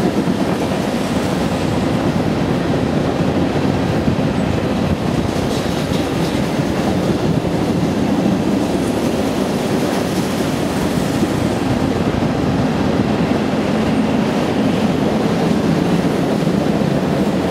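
Freight train of covered hopper cars rolling past: a steady rumble with the clatter of wheels over the rails.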